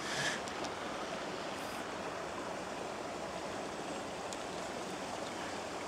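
Steady, even rushing noise like wind or moving water, with a few faint ticks and no distinct event standing out.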